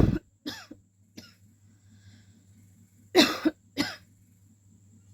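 A woman coughing in short, sharp bursts: a hard cough at the start followed by two weaker ones, then a pair of coughs about three seconds in.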